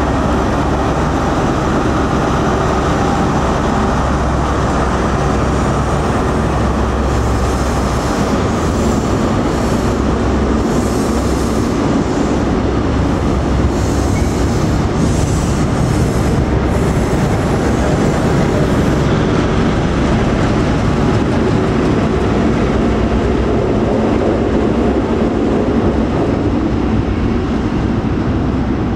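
InterCity 125 high-speed train with Class 43 diesel power cars moving past at low speed: steady diesel engine drone and wheels running on the rails, with patches of high wheel squeal from about seven to seventeen seconds in.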